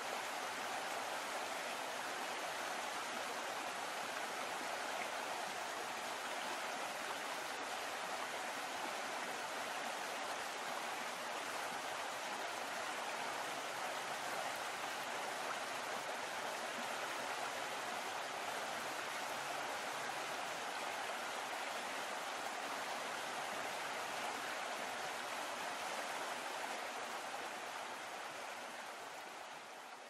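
Steady rushing and splashing of water along a moving boat's hull and wake, fading away near the end.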